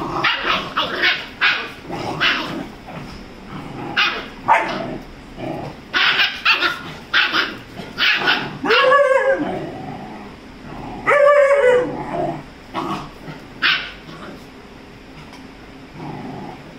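Rajapalayam and Labrador puppies play-fighting: a quick run of short, high yips and barks, then two longer yelping whines about eight and eleven seconds in, each rising and falling in pitch, and a few more yips before it quietens near the end.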